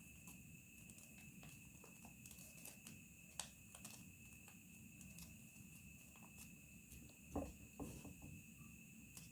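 Paper being folded by hand: faint scattered crinkles and ticks, with a sharper click a few seconds in and two louder knocks near the end.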